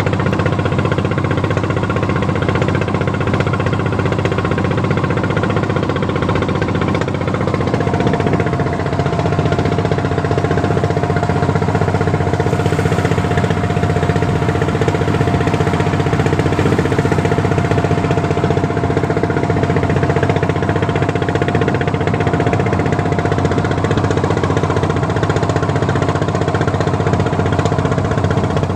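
A fishing boat's engine running steadily under way. About eight seconds in its note shifts slightly and a new steady higher tone joins it.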